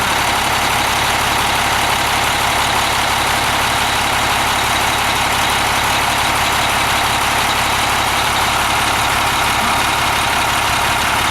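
A motorhome's Cummins diesel engine idling steadily.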